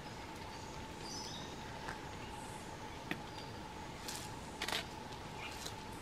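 Forest ambience: a steady faint high tone and a few small birds chirping briefly about a second in, with sharp clicks and rustles in the leaf litter as a southern cassowary forages at the ground. The loudest cluster of clicks comes about four and a half seconds in.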